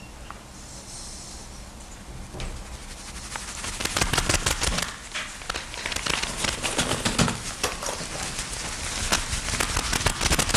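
Rapid, irregular clicking and rustling that builds from about four seconds in: a Parkinson's patient's hand tremor returning once his deep brain stimulator is switched off.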